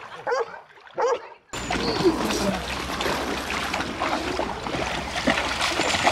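A dog gives two short yelps, then the sound cuts abruptly to splashing water over a steady noisy rumble.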